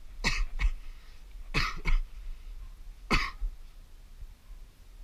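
A person coughing: five short coughs in three groups, two quick ones, two more about a second later, then a single cough.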